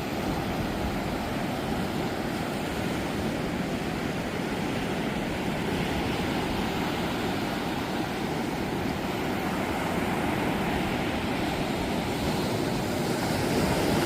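Pacific Ocean surf washing on the beach in a steady rush of noise, slowly building a little louder toward the end.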